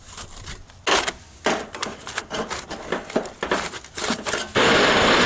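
Thin sheet-aluminium flashing crinkling and scraping in irregular bursts as it is bent and pulled with pliers. About four and a half seconds in, a Bernzomatic MAP-gas torch comes on with a sudden steady hiss.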